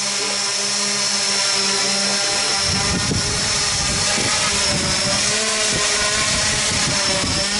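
Electric motors and propellers of a home-built quadcopter spinning, a steady multi-tone whine. The pitch shifts slightly about two and a half seconds in, and a gusty low rumble of air comes and goes for a couple of seconds.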